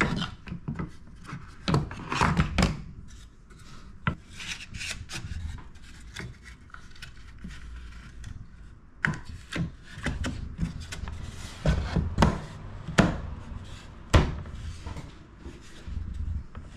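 Wooden frame boards being handled and fitted together: wood scraping and sliding against wood, broken by irregular knocks and clunks as the routed pieces are pushed into their joints. The sharpest knock comes about two-thirds of the way through.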